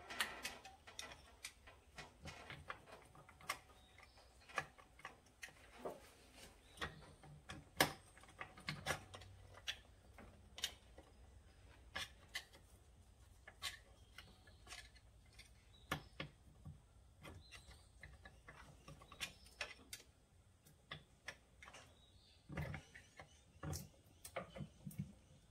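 Faint, irregular light clicks and knocks of hand tools and metal parts being handled while taking apart a UTV engine bay, with a closer run of knocks a few seconds before the end.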